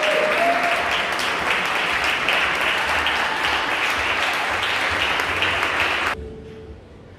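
Audience applause with dense hand-clapping, cutting off suddenly about six seconds in.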